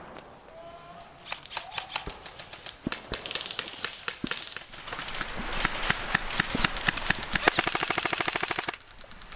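Airsoft electric guns firing: scattered single shots about a second in, growing into rapid bursts, then a long full-auto burst near the end that cuts off suddenly.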